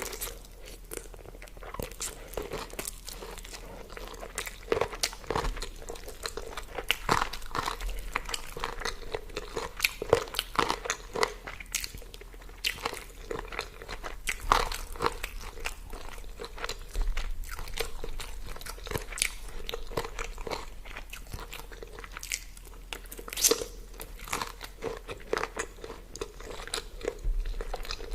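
A person eating: biting and chewing food in a steady run of many small, irregular crunching and clicking mouth sounds.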